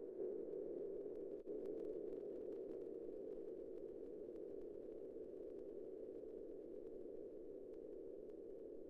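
Faint, steady electronic hum sound effect, a low-middle drone that holds without change, with a brief dip about a second and a half in.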